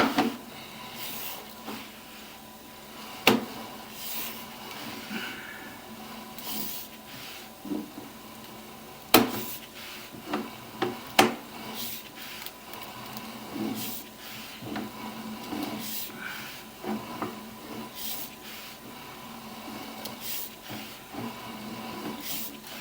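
Sewer inspection camera's push cable being pulled back through the pipe: rubbing and scraping with scattered sharp clicks and knocks, over a faint steady tone.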